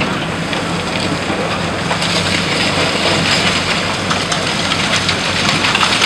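A high-reach demolition excavator's diesel engine runs with a steady low hum under a dense crackle of concrete and debris crumbling and falling as its jaws break away the building's top corner. The crackling grows louder about two seconds in.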